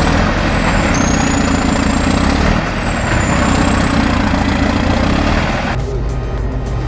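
Heavy earthmoving machine's diesel engine running hard, a deep rumble with a thin high whine that drifts slightly in pitch. It cuts off abruptly near the end, where a quieter low hum takes over.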